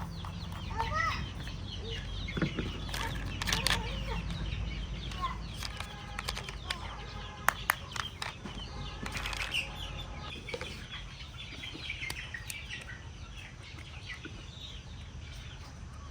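Birds chirping and calling, with two sharp clicks about seven and a half seconds in, over a steady low hum.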